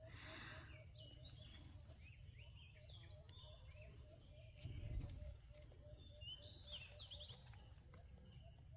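Steady high-pitched chorus of insects, with a low short chirp repeating about three times a second and a few brief falling bird calls about seven seconds in.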